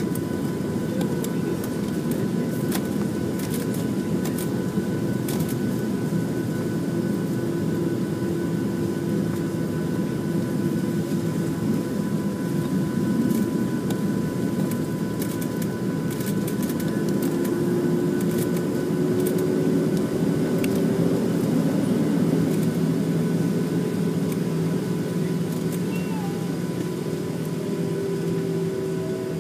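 Cabin noise of a Boeing 737-700 taxiing, heard inside from a window seat over the wing: its CFM56-7 jet engines at idle give a steady low rumble, with two faint steady high tones above it. A humming tone drops out near the start and comes back past the middle, rising slightly in pitch; a few faint clicks come in the first half.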